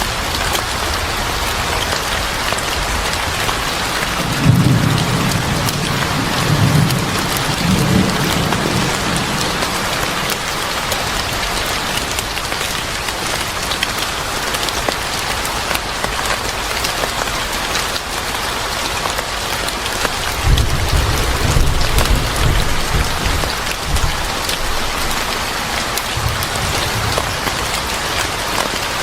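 Steady heavy rain, with low rumbles of thunder swelling about four seconds in and again about twenty seconds in.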